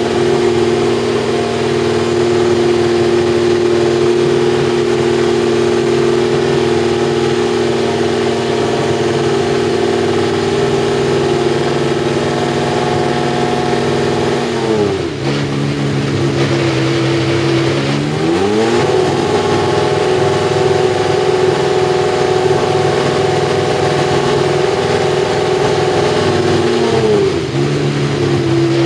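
McLaren Honda MP4/4's RA168E 1.5-litre turbocharged V6 running at steady held revs. The revs drop away about halfway through, climb back a few seconds later, and drop again near the end.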